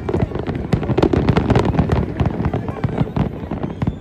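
Fireworks display going off in a dense, rapid barrage of bangs and crackling.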